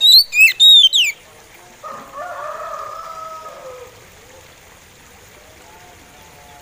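Oriental magpie robin singing a short phrase of clear whistled notes that slide up and down, lasting about a second. About two seconds in, a fainter, lower drawn-out call sounds for about two seconds in the background.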